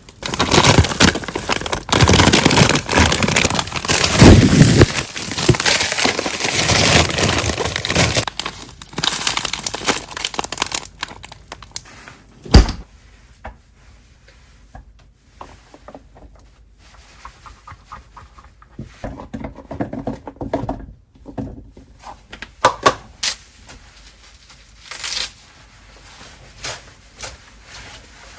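Plastic packaging being rustled, crinkled and torn for about the first ten seconds, then one sharp click followed by scattered small taps and clicks of handling kitchen items.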